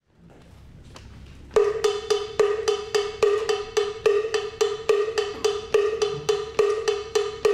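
A hand-held bell struck alone in the Afro-Cuban 6/8 bell pattern, coming in about a second and a half in after faint room noise. It is a repeating, uneven rhythm of bright, ringing metallic strokes at one pitch.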